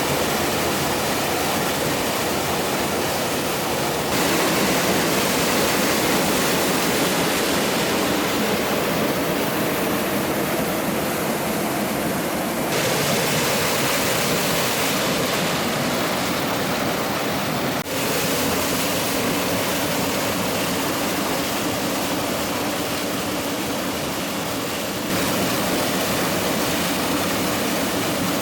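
Rushing water of a mountain stream and waterfall, a steady loud wash of noise that changes character abruptly a few times.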